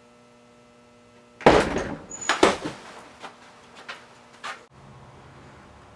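A wooden door banged open: two loud bangs about a second apart, then a few lighter knocks.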